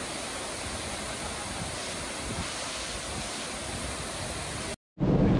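Steady roar of a 130-foot waterfall pouring over stepped rock ledges. Near the end it cuts off for a split second, and a louder, lower rush follows.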